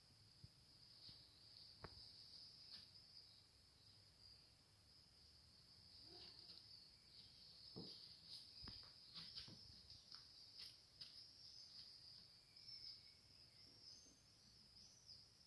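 Faint, steady high-pitched insect trilling, with a few scattered clicks and knocks around the middle.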